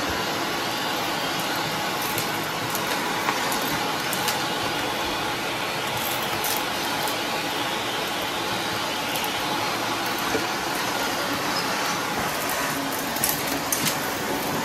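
Canister vacuum running steadily through its hose and wand, with scattered sharp clicks as debris is sucked up the hose.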